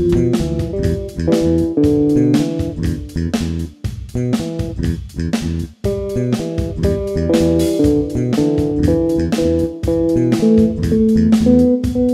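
Background music with plucked guitar and bass and a steady beat.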